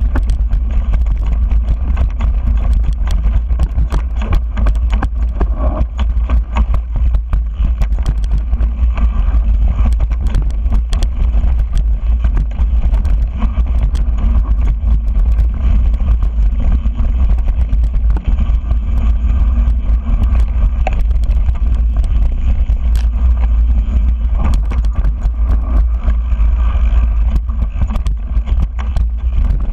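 Wind buffeting a GoPro's microphone on a mountain bike riding down a dirt singletrack: a loud, steady low rumble, with constant small clicks and rattles from the bike and tyres over the trail.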